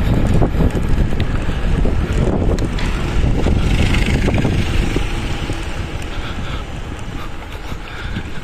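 Wind buffeting the microphone of a camera riding along on a moving bicycle, a loud, steady rumble that eases off over the second half.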